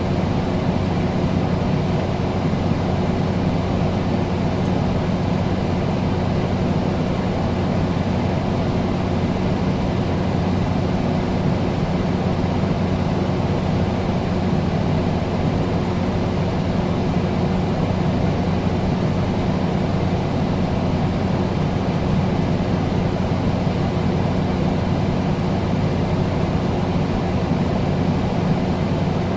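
Air conditioner running steadily: an even rush of air with a constant low hum underneath, unchanging throughout.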